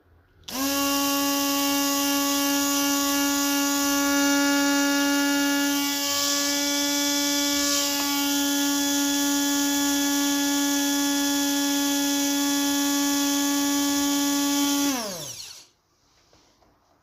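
Electric kitchen mixer switched on, its motor spinning up quickly to a steady high whine and running at constant speed for about fourteen seconds, then switched off and winding down in pitch to a stop.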